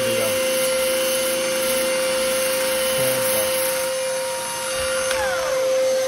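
Shop vacuum running with a steady whine, its hose held at an 80-grit sanding disc on a battery-powered rotary buffing tool that is grinding peeling paint off a fiberglass panel.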